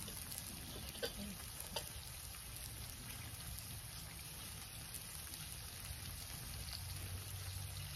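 Faint steady sizzling hiss from meat cooking on a charcoal kettle grill, with two light clicks of a knife and fork cutting steak on a plate, about one and two seconds in.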